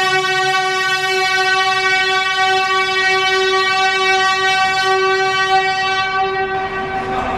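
Hand-held canned air horn sounding one long, loud, steady blast; its higher overtones thin away near the end, just before it stops.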